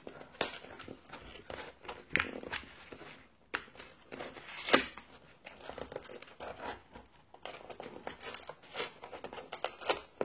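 Product packaging being opened by hand: irregular tearing, crinkling and rustling, with a sharp crack nearly five seconds in.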